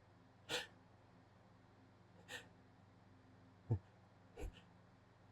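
A man's short, sharp sniffs and catching breaths, four in about four seconds, as a tickle builds toward a sneeze.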